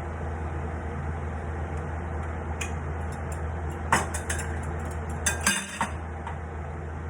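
A utensil clinking and clattering against a cooking pot in a few short bursts, loudest about four seconds in and again near the six-second mark, over a steady low hum.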